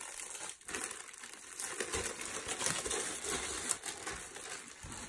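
Clear plastic packaging bag crinkling and rustling as it is handled.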